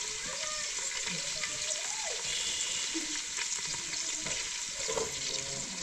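Food frying in an aluminium pot over a wood fire: a steady sizzle, with a few light knocks of the spoon in the pot.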